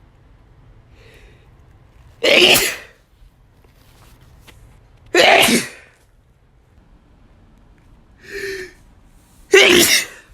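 A man sneezing hard three times, about three seconds apart, each a short, loud burst. A shorter, quieter vocal sound comes just before the last sneeze.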